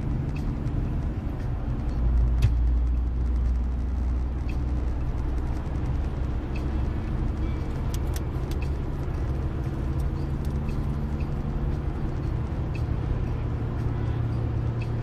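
Car cruising on an open road, heard from inside the cabin: a steady low rumble of engine and tyre noise that swells briefly about two seconds in, with a few faint clicks.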